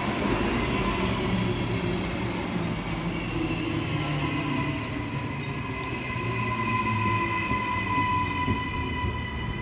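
Train running past: a low rumble with a steady high-pitched squeal over it that grows stronger about halfway through.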